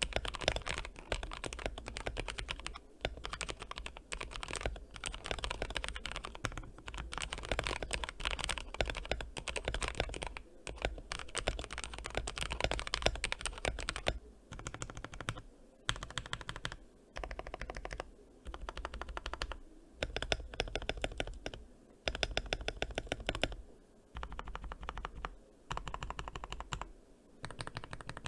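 Typing on a modded Womier K66 mechanical keyboard in its upgraded state: rapid, continuous keystrokes for about the first half, then bursts of typing a second or two long with brief pauses between them.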